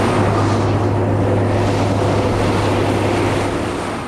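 Heavy road train truck driving, a steady low engine drone under tyre and wind noise, which falls away near the end.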